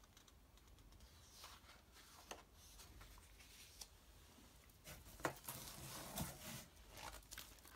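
Faint rustling and light taps of large paper prints being handled and slid aside across a wooden tabletop, with a few sharper ticks in the second half.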